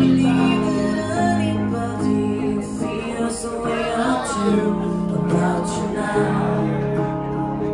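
A young man singing a mellow song to his own acoustic guitar, with long held sung notes over the guitar.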